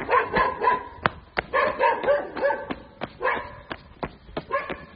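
A dog barking in quick short runs of high yips, over regular crunching footsteps on gravel, about three a second.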